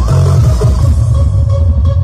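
Loud electronic dance music blasting from a 'sound horeg' carnival sound system, with a heavy pulsing bass and a held high synth tone coming in about halfway through.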